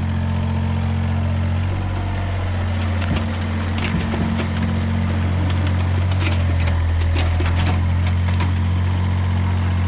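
Yanmar ViO mini excavator's diesel engine running steadily at idle, a little louder from about six seconds in, with scattered sharp clicks and knocks.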